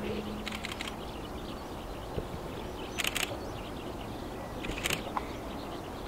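Steady outdoor background hiss, broken three times by short, sharp clusters of rapid clicks, each lasting about a quarter of a second.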